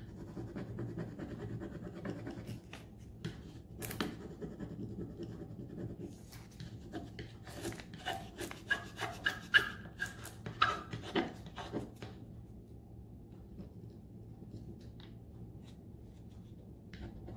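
Sandpaper rubbed by hand over a painted MDF frame in irregular scratchy strokes, distressing the paint for a worn shabby-chic look. The strokes grow louder and sharper about halfway, then turn quieter after about twelve seconds.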